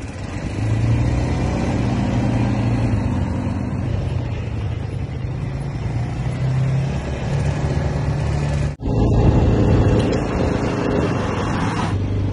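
Quad bike (ATV) engine running under way, its note stepping up and back down with the throttle over a steady rushing noise. There is a brief break in the sound about nine seconds in.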